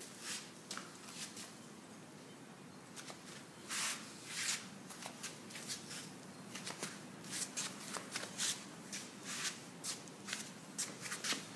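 Irregular short scrapes and rustles, several a second at times, over a faint steady hiss.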